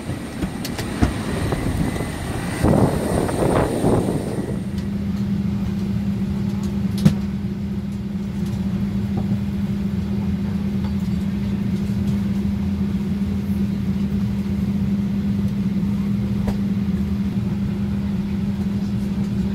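Vehicle engine noise: uneven noise with a faint high whine for the first four seconds or so, then a steady engine drone with a constant low hum. A single sharp click about seven seconds in.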